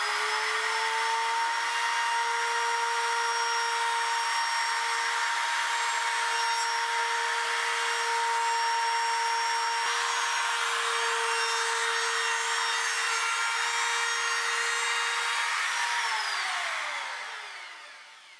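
Trim router running at full speed as its bit rounds over the edges of a wooden 2x4 frame: a steady high motor whine with the hiss of the bit cutting wood. About 16 seconds in it is switched off and winds down, its whine falling in pitch as it fades.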